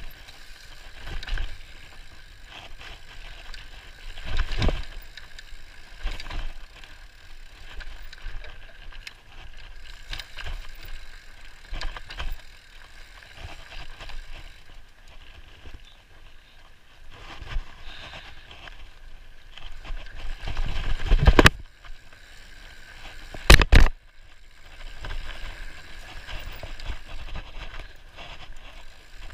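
Mountain bike rolling fast down a dirt singletrack: steady tyre and ride noise, with the bike rattling and knocking over bumps. Two loud jolts come about two thirds of the way through, the second a pair of sharp knocks.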